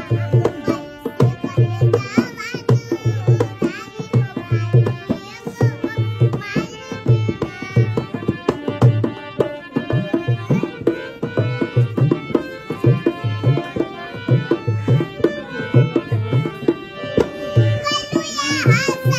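Indian instrumental music with tabla keeping a steady beat and a melodic line above it.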